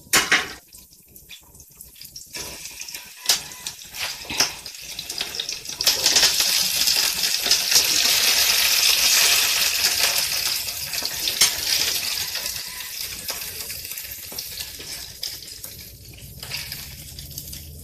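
Sliced bitter gourd (ampalaya) dropped by hand into a pan of hot oil with sautéed onion and tomato, sizzling loudly from about six seconds in and easing off over the last few seconds. A few sharp clicks and knocks come before the sizzling.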